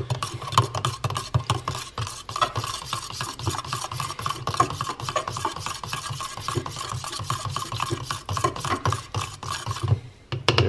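Table knife stirring a powdered greens drink in a plastic cup, the blade scraping and clicking against the cup's sides in quick, continuous strokes. It stops just before the end.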